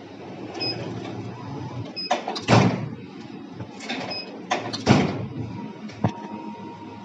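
Sliding safety door of a plastic injection moulding machine being slid along its track twice, each slide starting with a sharp clack, with another click near the end, over a steady machine hum. The door is the machine's safety interlock: the mould clamp closes only once it is shut.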